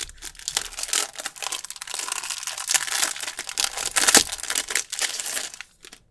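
Clear plastic packaging bags crinkling and rustling as hands handle them and pull out frosted plastic tab dividers. The crinkling stops shortly before the end.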